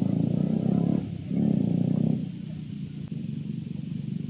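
KTM 250 Duke's single-cylinder engine running as the motorcycle rides at low speed. It gets louder under throttle twice in the first two seconds, then settles quieter.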